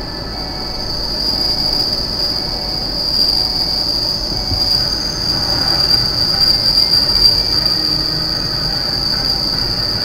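Freight train wheels squealing on the rails: a steady, piercing high-pitched squeal that grows louder about a second in and is loudest in the second half. It is the wheel-on-rail screech the driver calls ear piercing and blames on something wrong with the wheels.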